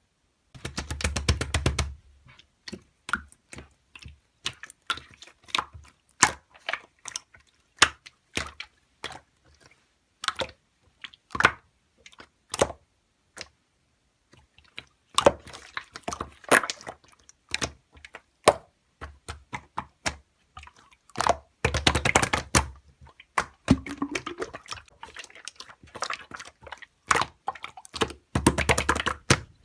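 Slime being squeezed and poked by hand, making sharp sticky clicks and pops: single pops scattered throughout, with several dense crackling runs of about a second each.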